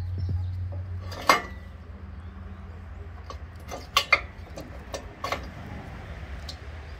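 Sharp metal clanks and clinks of a steel locking pin and dozer blade extension being handled by hand, the loudest about a second in and two close together about four seconds in, over a steady low hum.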